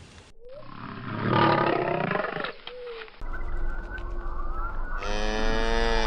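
African elephant calls in several short recordings spliced back to back, changing abruptly about three and five seconds in; the last is a pitched call held for about a second.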